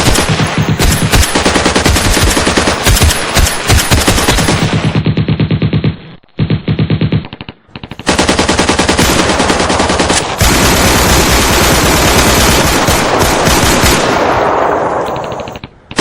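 Machine-gun firefight: rapid bursts of automatic gunfire that thin to a few short bursts about six seconds in, then resume as heavy continuous fire and fade out near the end.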